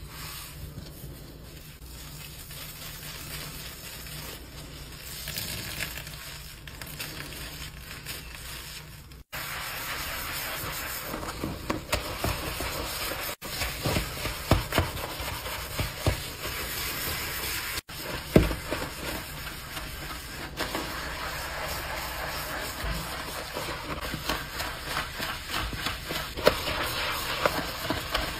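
Sponge scrubbing a black sink basin through thick soap foam: a wet, crackling scrub with many small irregular pops, getting louder about nine seconds in.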